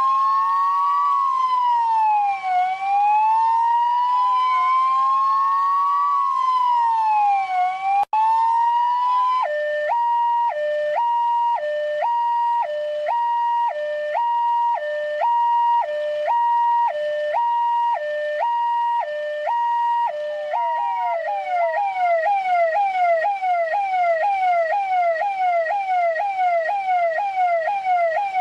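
Electronic police siren cycling through its modes: a slow rising and falling wail, broken by a short dropout about eight seconds in. It then switches to a two-tone hi-lo, alternating about once a second. From about twenty-one seconds it becomes a fast yelp of quick falling sweeps, about three a second.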